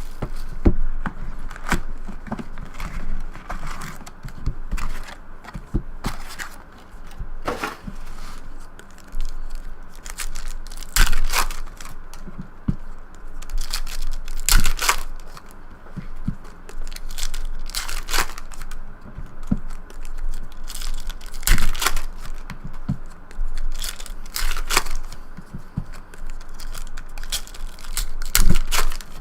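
Trading card packs being torn open and their wrappers crinkled: repeated sharp rips, one every second or few, with cards handled between them.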